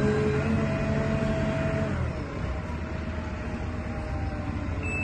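Perkins diesel engine of a JLG 4013 telehandler running as the machine drives across the yard, then easing back to a quieter idle about two seconds in as it slows.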